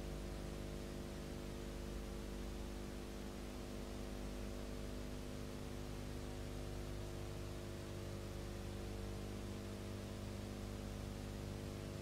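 Steady electrical hum with a layer of hiss and nothing else: the noise floor of a silent film's transfer, with no recorded sound of its own.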